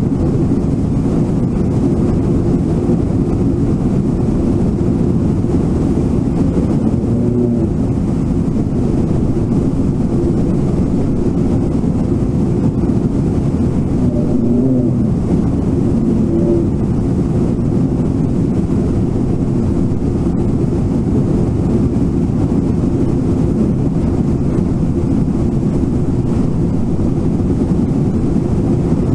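Whitewater rushing steadily over a river falls, a loud, deep, unbroken rush.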